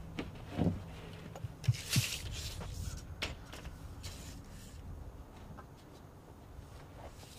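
Faint handling noise from a steel tape measure being pulled out and worked along the roof sheathing: a few light clicks and knocks in the first few seconds, with a brief hiss about two seconds in.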